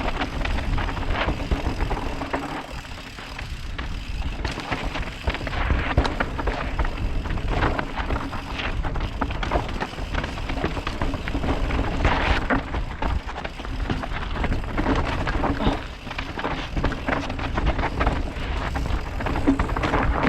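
A bike rattling and knocking over rocks on a rough trail descent, with wind rumbling on the microphone throughout. The knocks come irregularly, many times a second.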